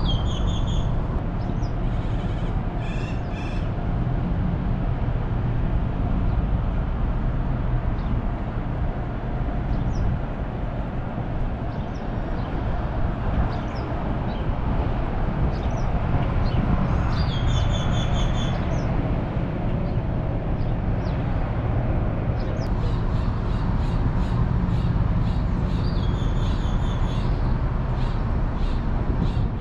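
Steady low rumble of an idling car, with groups of short, repeated bird calls near the start, about midway and again through the last several seconds.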